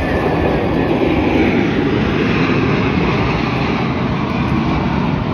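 Jet engines of a formation of military jet aircraft flying past, a steady rushing noise that grows louder about a second in.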